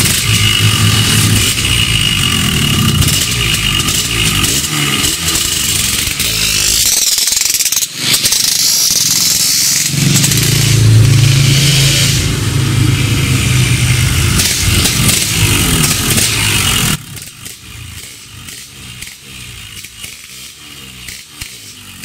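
Yamaha RX-King's two-stroke single-cylinder engine running. It breaks off briefly about a third of the way in, then drops to a much quieter engine sound for the last few seconds.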